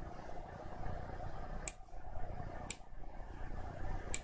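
Computer mouse button clicking as a piece is picked and placed in the software: three short, sharp clicks about a second apart, over a low steady room hum.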